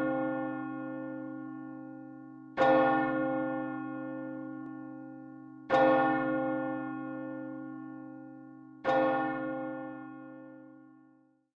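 One church bell tolling slowly: a strike about every three seconds, each left to ring out, the last fading away near the end.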